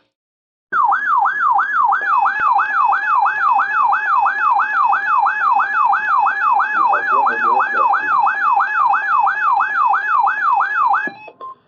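Siren-like electronic alert tone played over a radio broadcast: a warbling tone sweeping up and down about two and a half times a second, with a steady higher tone beneath it. It starts just under a second in and cuts off near the end, the attention signal ahead of a severe thunderstorm warning.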